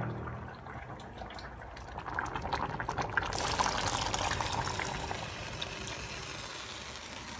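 Liquid bubbling in a lidded cooking pan on the stove, a crackly, bubbly noise that swells about two to three seconds in and then settles to a steadier simmer.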